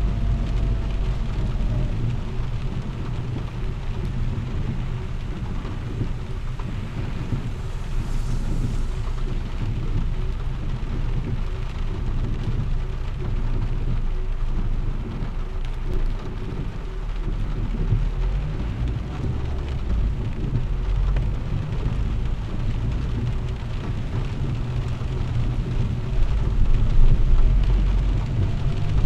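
A car driving on a wet road in rain, heard from inside the cabin: a steady low rumble of engine and tyres under a hiss of rain and spray, growing louder near the end.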